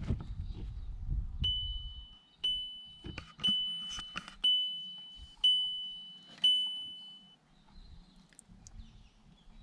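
An electronic chime in the van beeping six times, about once a second, each high tone fading away, after some low rustling and knocks at the start.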